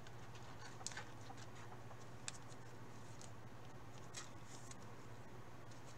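Faint scattered clicks and light rustling as trading cards and a clear plastic card sleeve are handled in gloved hands, over a steady low hum.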